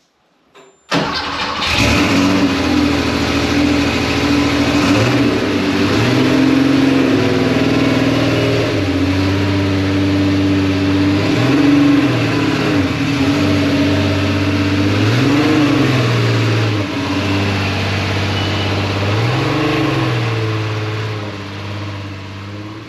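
Air-cooled Porsche 911's flat-six engine starting about a second in, then running steadily with two throttle blips that rise and fall in pitch, fading near the end as the car pulls away.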